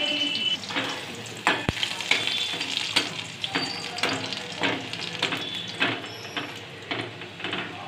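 Chopped garlic sizzling in hot oil in a steel kadhai, with a spatula scraping and clicking against the pan as it is stirred; one louder knock of the spatula about a second and a half in.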